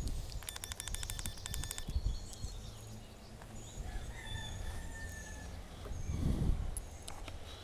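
Gusty wind buffeting the microphone with a low rumble that swells about six seconds in, and birds singing with short high whistled notes. About half a second in, a rapid, even run of short high notes lasts about a second and a half.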